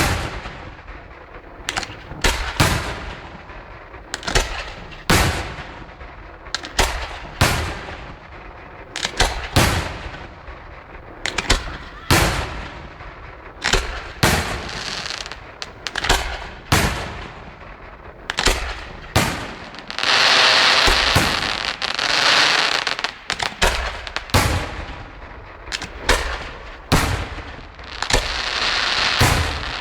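Aerial fireworks display: a steady barrage of sharp shell bursts, roughly one or two a second, each trailing off in an echo. Twice, about twenty seconds in and near the end, a dense continuous crackle lasting a few seconds.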